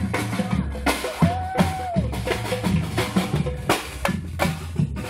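Percussion band drumming a fast, steady rhythm, with heavy bass-drum thumps under sharper strikes.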